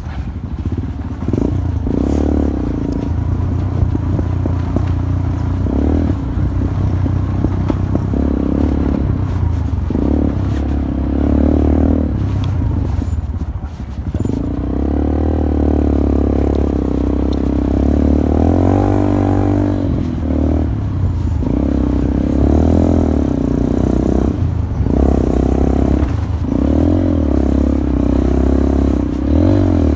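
Honda XR125 single-cylinder four-stroke engine running under load on a dirt trail, the revs rising and falling with the throttle. The engine dips briefly about halfway through, then climbs again.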